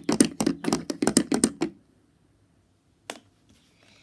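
Plastic toy horse figures' hooves tapped quickly on a hard surface, about six or seven taps a second like galloping hooves. The tapping stops a little under two seconds in, and one more tap follows about a second later.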